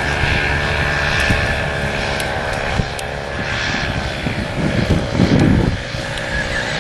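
Paramotor engine and propeller running with a steady drone, mixed with gusts of wind on the microphone.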